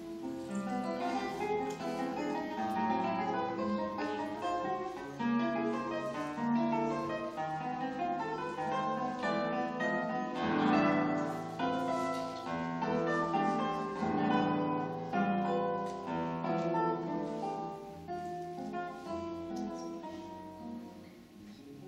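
Solo classical guitar, its nylon strings fingerpicked in a quick, dense run of notes. The playing is loudest about halfway through and grows softer near the end.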